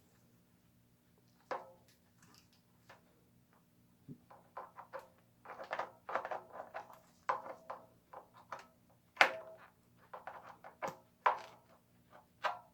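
Irregular scraping, rubbing and knocking of a bifurcated plug tool being pushed and worked against a tubeless bicycle tyre, forcing a strip of inner tube into a sidewall puncture, with short rubbery squeaks. The strokes come in quick, uneven bursts and grow busier after the first few seconds.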